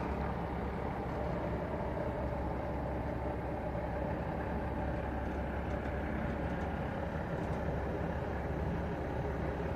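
Semi-truck's diesel engine running steadily at low revs as the tractor slowly backs a flatbed trailer.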